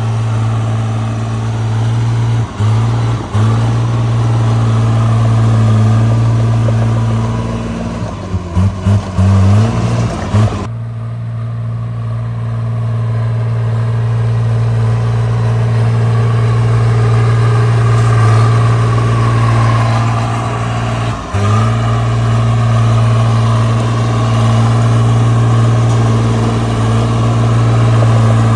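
Caterpillar D3C bulldozer's diesel engine running steadily at high speed, its pitch sagging briefly a few times as the blade takes the load, with a choppy stretch of uneven engine note in the middle.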